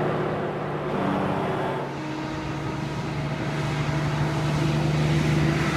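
Kenworth T610 SAR truck's diesel engine running on the road with a steady hum. It eases off about two seconds in and then builds again gradually.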